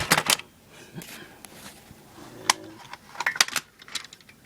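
Plastic casing of a VeriFone credit card terminal being handled and pried open: a quick cluster of clicks and rattles at the start, a single sharp snap about two and a half seconds in, and another short run of clicks near the end.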